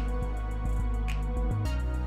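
Instrumental background music with a held low bass line and a light tap about once a second.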